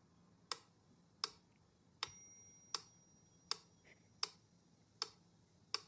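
Eight sharp, evenly spaced ticks, about one every three-quarters of a second, with a short high ringing tone about two seconds in.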